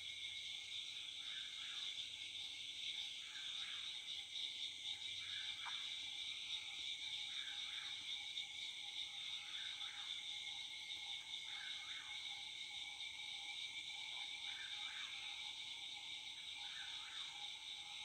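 Evening chorus of frogs and insects, a steady high drone, with a whip-poor-will's song repeating about every two seconds over it.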